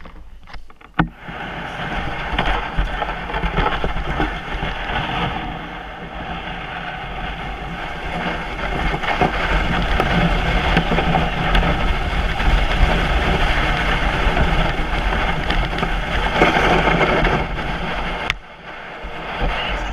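Plastic sled sliding over packed snow, a steady scraping hiss heard close up. It starts about a second in and stops abruptly near the end.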